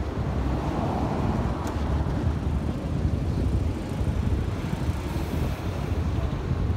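A steady low rumble with no clear engine note.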